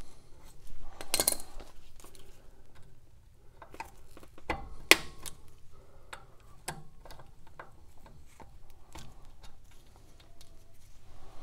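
Scattered small metallic clicks and ticks of pliers working a cotter pin out of a Ford Model A's front wheel hub, with one sharper click about five seconds in.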